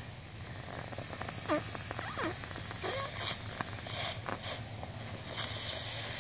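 Air being blown by mouth into the valve of an inflatable plastic paddling pool: a series of hissing breaths, one after another, the longest near the end.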